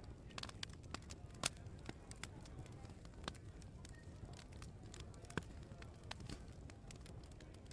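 Open wood fire crackling, with irregular sharp pops over a low steady rumble; the loudest pop comes about a second and a half in.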